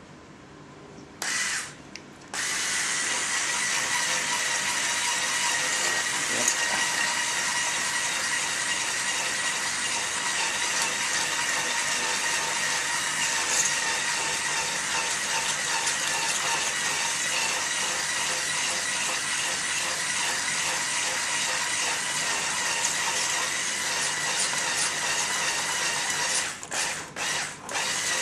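Electric hand whisk running with a steady whine, whisking honey and propolis into a custard-thick mix of melted beeswax and olive oil to make propolis cream. A short burst about a second in, then it runs continuously, cutting out briefly a few times near the end.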